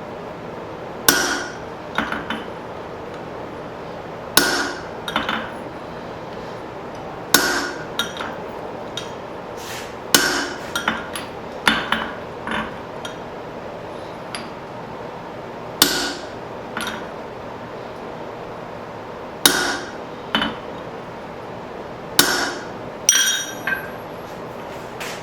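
Blacksmith's hammer driving a punch through hot steel on an anvil to punch a hammer eye. A heavy ringing blow comes every three to four seconds, each followed by a few lighter taps.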